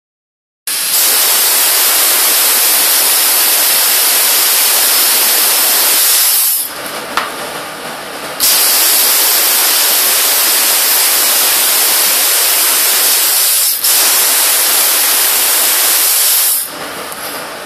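Handheld Dycomet low-pressure cold spray gun blasting a jet of compressed air and metal powder, a loud steady hiss as it builds up new metal on the part. The hiss eases to a lower rush about six and a half seconds in and comes back two seconds later. It dips for an instant near fourteen seconds and drops back to the lower rush near the end.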